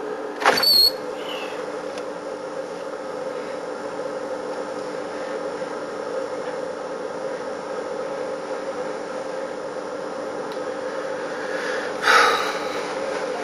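Steady mechanical or electrical hum with a few fixed tones, broken by two short, loud scraping or squeaking noises, one about half a second in and one near the end.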